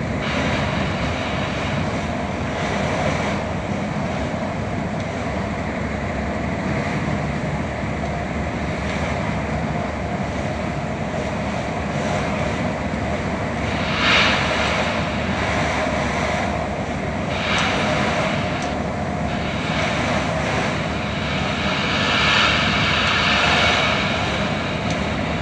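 Steady engine drone and tyre noise heard inside the cab of a heavy vehicle driving on a wet road, with several brief swells of hiss in the second half as oncoming traffic passes.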